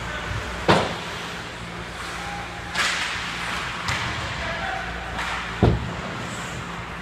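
Ice hockey play around the net: two sharp cracks of stick and puck, one under a second in and one near the end, with a short scraping hiss of skates on the ice between them. A steady low hum runs underneath.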